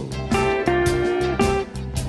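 Electric blues guitar playing a lead fill of held, ringing notes over a backing track with a steady beat.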